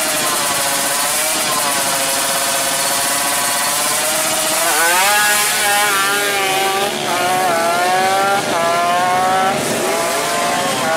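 Drag bike engine held at high revs at the start line, then launching. Its pitch climbs and drops back at each of several quick upshifts as it accelerates away.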